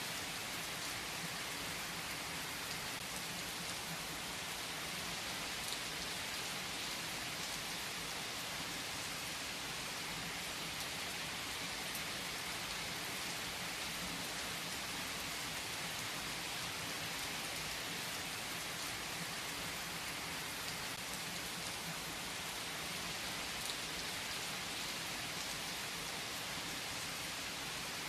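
Steady rain falling: an even hiss with the odd single drop ticking through it.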